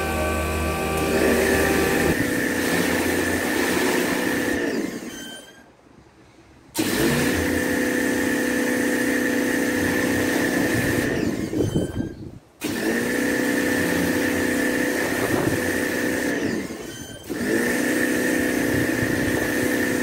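Pressure washer running in four stretches of a few seconds each, with a steady high whine over a lower hum. Between stretches the motor winds down and stops. It is rinsing a chemical wash and loosened oxidised paint off a garage door.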